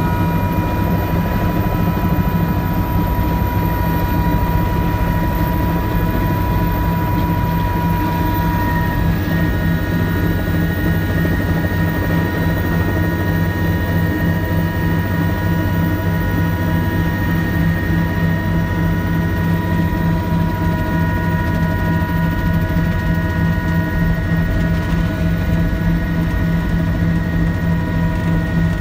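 Helicopter engine and rotor heard from inside the cabin as it lifts off and climbs: a loud, steady, rapid beat with a high whine over it. The whine changes tone about nine seconds in.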